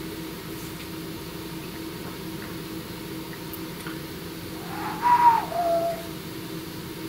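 Steady low background hum, with a brief whistle-like sound about five seconds in that drops from a higher note to a lower one.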